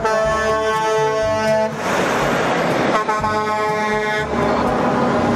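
Semi-truck air horn sounding two long blasts, the first lasting about a second and a half and the second starting about three seconds in, over the rushing noise of big trucks passing on the road.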